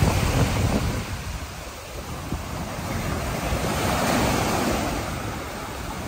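Small ocean waves breaking and washing up a sandy beach, the wash swelling and ebbing, loudest again about four seconds in. Wind buffets the microphone with a low rumble, strongest at the start.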